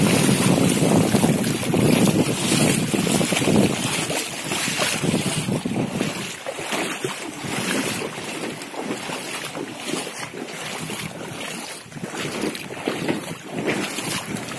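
Wind gusting on the microphone over the steady rush of floodwater flowing across and around a footbridge deck. The wind is heaviest in the first few seconds, then eases.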